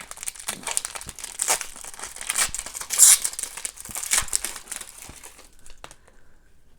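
Foil wrapper of a hockey card pack crinkling and tearing as the pack is opened and the cards handled; the crinkling stops about five and a half seconds in.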